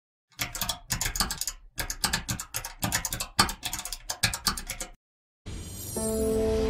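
Fast typing on a laptop keyboard: quick clusters of key clicks for about four and a half seconds, stopping abruptly. Near the end a swelling whoosh rises and music begins.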